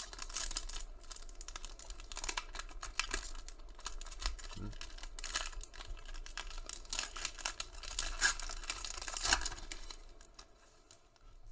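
Foil wrapper of a Panini Prizm basketball card pack crinkling and tearing as it is ripped open by hand: a dense run of crackles that dies down near the end.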